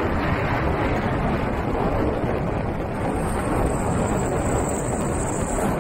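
Vehicle driving on a wet gravel road, heard from inside the cabin: a steady rumble of tyres, engine and wind, with a faint high-pitched whine coming in about halfway through.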